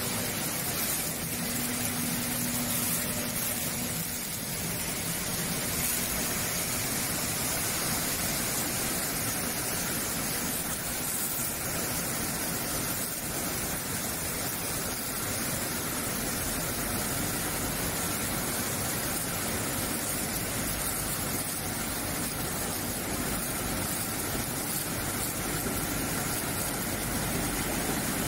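Brush-roller vegetable washing machine running, its spray nozzles showering water over sweet potatoes on the turning brushes: a steady, even rush of spraying water and machine noise.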